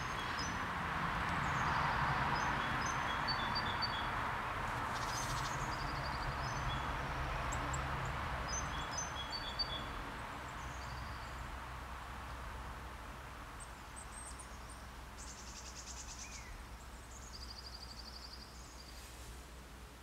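Outdoor ambience: a steady rushing noise, strongest in the first half and slowly fading, with scattered thin, high chirps and a couple of short trills from small birds.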